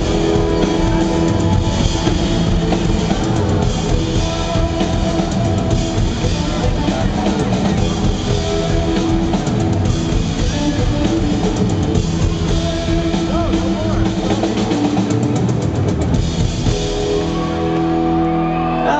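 Live rock band playing with a drum kit and guitar. Near the end the drums drop out, leaving held chords ringing.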